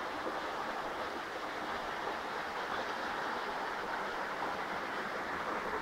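Steady rush of stream water spilling over rocks into a pool: an even, unbroken hiss.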